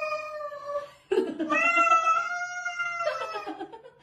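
A cat yowling in long, drawn-out calls, the angry warning of a cat squaring off with another cat that is swatting at it. One yowl ends about a second in; a second, longer one starts with a rough growl and fades out near the end.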